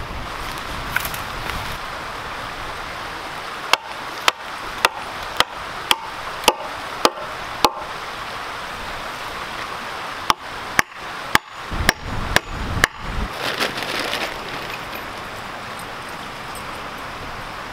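Hatchet chopping into a wooden pole: about eight sharp strikes roughly half a second apart, then after a short pause a quicker run of heavier chops. A steady rush of a flowing creek runs underneath.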